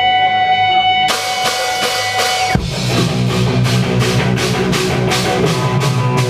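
Rock band playing live in a punk/post-hardcore style. A held guitar note rings, then about a second in the drums start a steady beat on the cymbals, and bass and guitar come in about halfway through.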